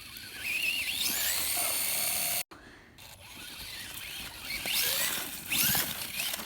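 RC car's electric motor whining at high pitch, rising in pitch as it speeds up, in repeated runs. The sound drops out briefly about two and a half seconds in.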